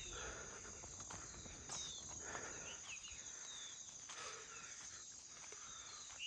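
Rural outdoor ambience: insects keep up a steady high-pitched drone, with a few short, quick chirps scattered over it.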